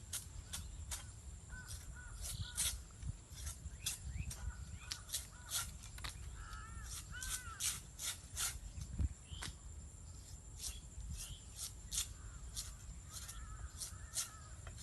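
Crows cawing over a run of sharp, irregular clicks, several a second, with a steady high insect whine throughout.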